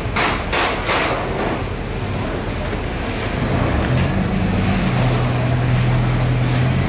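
A ferry boat's engine running at low speed while it manoeuvres alongside a jetty; its low hum shifts in pitch a few times, about four to five seconds in. Three short thuds come in the first second.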